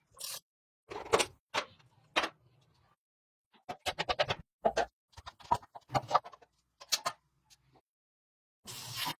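Quick runs of short knocks, clicks and scrapes from tools and parts being handled, in bursts broken by dead silence, as in a workshop teardown.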